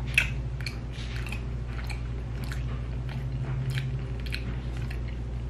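A person chewing food, with short wet mouth clicks about twice a second and a sharper click just after the start, over a steady low hum.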